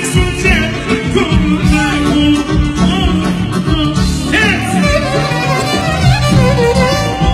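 Live Albanian wedding folk music: a male singer singing into a microphone over a band with violin. A long note is held from about five seconds in.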